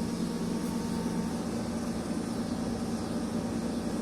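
Steady low mechanical hum of running machinery, holding an even drone with no change in pitch or level.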